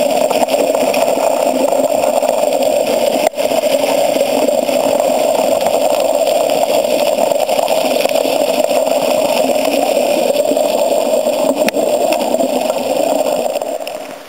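Creek water rushing around an underwater camera: a steady, muffled, heavy rush with one sharp knock about three seconds in, fading away just before the end.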